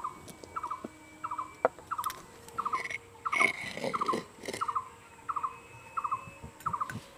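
A repeated animal call: a quick burst of three or four short notes, about every two-thirds of a second. Around the middle it is joined by the dry scrape and knock of a cup scooping flour from a bowl.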